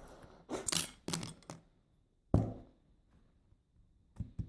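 Small metallic clicks and a clunk from a just-picked Tri-Circle padlock and the lock picks being handled: a few light clicks in the first second and a half, a louder click with a short ring a little past two seconds in, and two quick clicks near the end.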